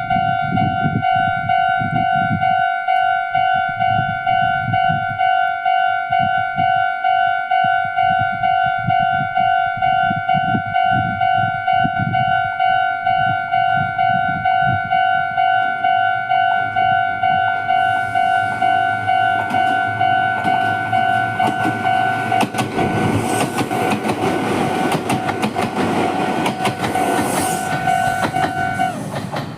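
Meitetsu-type level-crossing warning bell ringing in a steady, even ding-ding at about two strikes a second. About eighteen seconds in, a train starts passing and its wheels clatter over the rail joints. The bell stops just before the end.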